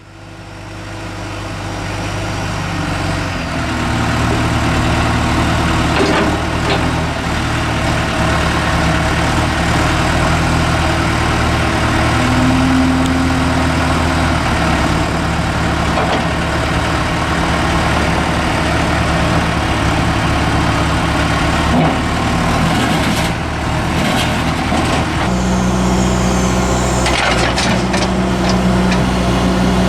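A John Deere 310E backhoe loader's turbo diesel engine running steadily. Its note steps up about three seconds in and shifts again near the end, with a few sharp metallic knocks along the way.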